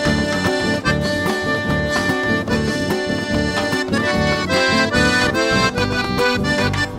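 Live chamamé tropical band playing an instrumental passage, the accordion leading over guitar and drums, heard direct from the mixing desk. About four seconds in the accordion moves from held chords to a run of quick notes.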